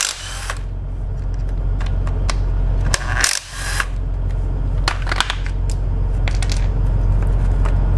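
Cordless power tool spinning out the 10 mm timing chain guide bolts in two short runs, then a few sharp clinks of the loose bolts in the hand, over a steady low hum.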